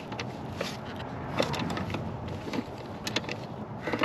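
Flare nut wrench clicking against the brake-line flare nuts and fittings on a hydraulic brake booster as the nuts are given their final tightening. The clicks come at irregular spacing, a few a second, over faint steady background noise.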